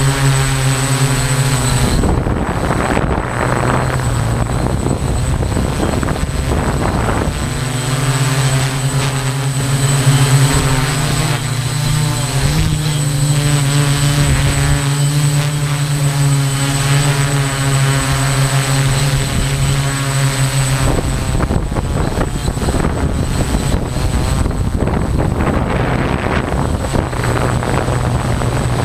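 Small multirotor drone's motors and propellers humming steadily in flight, with a slight step up in pitch about halfway through. In two long stretches a rushing noise covers the hum.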